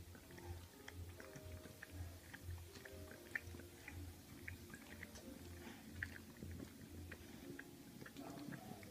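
Rottweiler puppy chewing and mouthing a Cavalier King Charles spaniel's ear: faint wet smacking and small clicks, with soft low pulses about twice a second.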